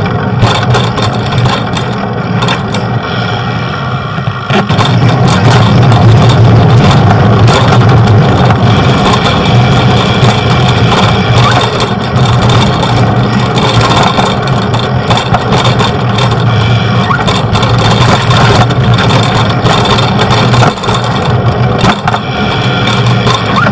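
Motor traffic on a city street: vehicle engines running close by with a steady low hum, getting louder about four seconds in.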